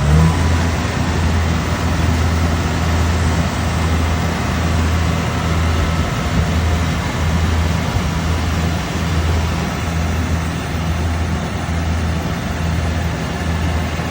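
Combine harvester's engine running steadily under load as it starts harvesting rice, a low hum with a regular throb about once a second over the clatter of the machinery.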